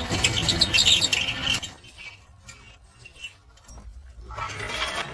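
Electric rickshaw making an unwanted rattling, clicking noise, the fault being shown. The noise is loud for about the first second and a half, drops away, and comes back briefly near the end.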